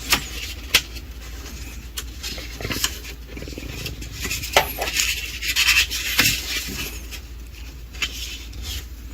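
Scattered light clicks, taps and rustling of objects being handled and moved about.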